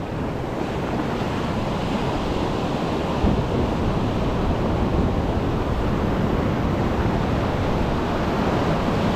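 Shallow ocean surf washing and breaking steadily around the feet, with wind buffeting the microphone. A brief low bump sounds about three seconds in.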